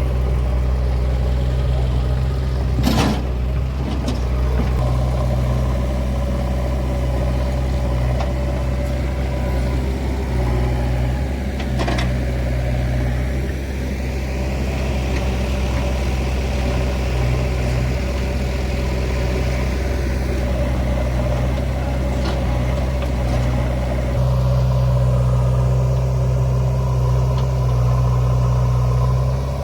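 Heavy diesel machine engine running steadily at low speed, with a sharp knock about three seconds in and another about twelve seconds in; the engine note grows a little louder near the end.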